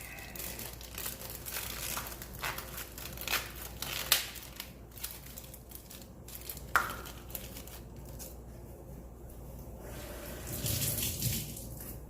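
Irregular crinkling, tearing and small clicks of garlic being broken apart and its papery skin peeled, busiest in the first half.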